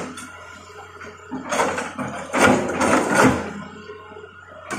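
Hitachi hydraulic excavator's diesel engine running steadily with a whine from its hydraulics, and a loud stretch of crunching and scraping about a second and a half in, lasting about two seconds, as the bucket works through soil and brush.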